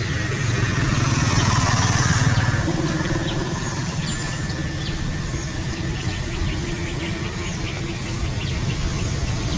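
A motor vehicle engine running steadily in the background: a continuous low rumble.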